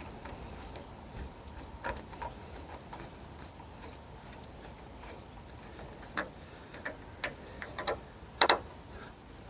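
A screwdriver turning the retaining screw of a smart lock cylinder into a door lock: scattered light metallic clicks and ticks, with a louder double click near the end.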